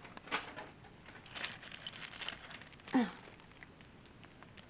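Light clicks and rustling as table-lamp parts are picked up and handled during assembly.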